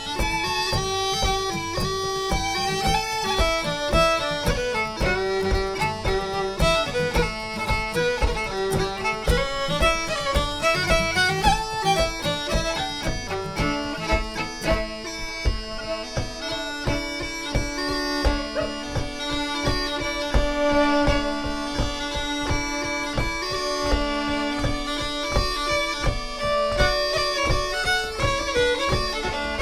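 Celtic band playing an instrumental tune: a piping wind melody with fiddle over a strummed guitar and a steady bodhrán beat.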